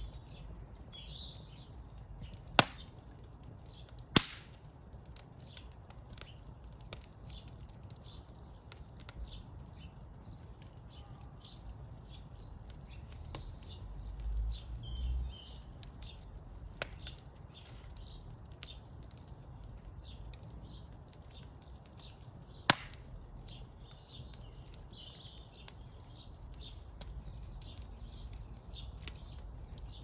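Wood fire of split logs burning in an open brick fireplace, crackling steadily with sharp loud pops about two and a half, four and twenty-three seconds in. A brief low rumble comes about halfway through.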